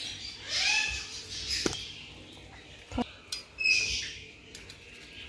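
A metal spatula and kitchen knife click against a wooden cutting board twice as a kabab patty is mashed onto a bun. A couple of high, squeaky, arching calls are also heard, the loudest about a second in.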